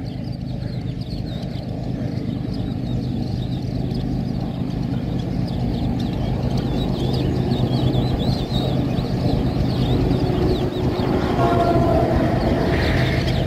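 General Electric diesel-electric locomotive approaching with its passenger train, the engine's steady low drone and the rumble of the train growing gradually louder.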